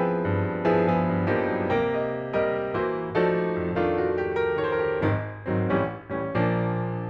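Background piano music: a slow, gentle melody of single struck notes, each ringing and fading, about one or two a second.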